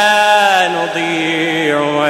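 A man's voice in melodic Quranic recitation (tajweed), holding a long drawn-out note that slides down to a lower pitch just under a second in and carries on with small ornamental turns.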